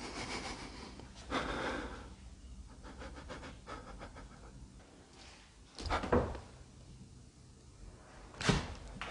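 A person breathing hard while climbing a wooden staircase, with light footfalls and two sharp thumps, one about six seconds in and a louder one near the end.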